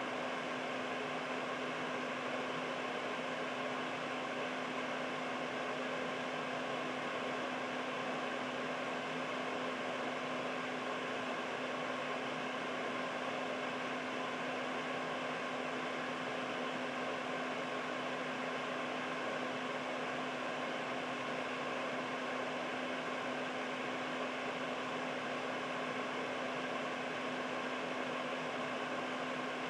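Air purifier running steadily: an even fan whoosh with a constant motor hum under it.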